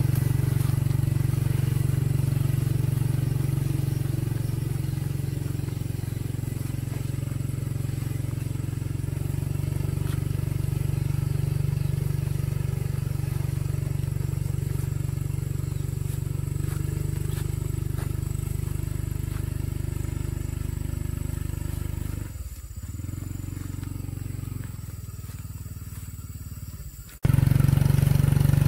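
Small motorbike engine running steadily under load as it tows a heavy log at low speed. The engine sound drops off about 22 seconds in, then comes back suddenly louder and close near the end.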